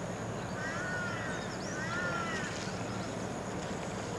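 A crow cawing twice, about a second apart, each call a short arched caw, with faint high chirps of small birds over a steady outdoor background hiss.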